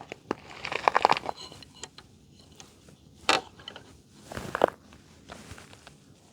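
Plastic zip tie pulled tight through its lock: a quick run of ratcheting clicks about a second in, then two shorter rasps near the middle.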